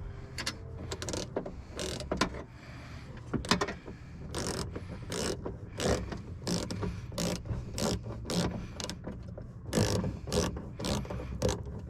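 1/4-inch drive ratchet with a 10 mm socket clicking as it loosens the bolts holding a car door window to its regulator: repeated short ratcheting strokes with brief pauses between runs.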